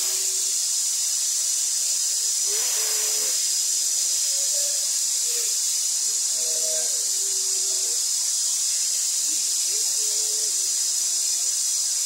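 Waterfall rushing as a steady hiss, with faint singing of slow held notes underneath.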